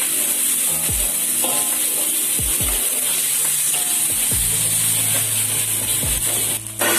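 Background music with a steady beat of deep, falling drum hits and a held bass note from about halfway, over the sizzle and scrape of a metal spatula stir-frying diced potatoes and leaves in a hot wok.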